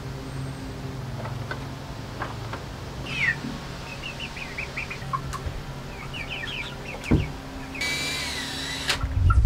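Birds chirping in short quick series. About eight seconds in, a cordless drill runs for about a second with a whine. Hens begin clucking right at the end.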